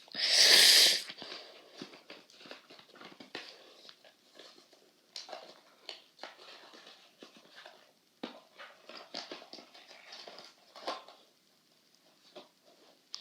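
A short, loud breathy rush right at the start, then scattered small clicks and rustles of a plastic puzzle cube and its packaging being handled.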